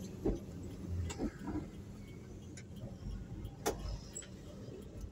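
Steady low hum of a vehicle driving along a street: engine and road noise, with a few scattered short clicks and knocks, the sharpest a little over three and a half seconds in.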